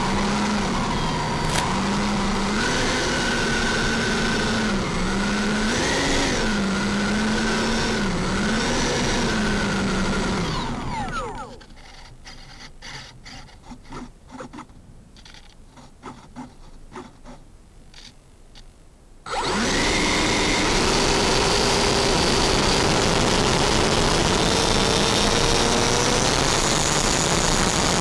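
Freewing F-5 RC jet's electric ducted fans heard from the onboard camera, whining at taxi throttle with the pitch wavering up and down. A little past the middle they drop away to quiet with light clicks, then come back suddenly and climb slowly in pitch as the throttle goes up for the takeoff roll.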